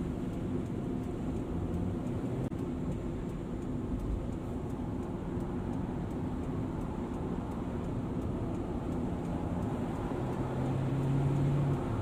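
Steady road and engine noise of a car driven at speed, heard from inside the cabin, with a low steady hum for a second or so near the end.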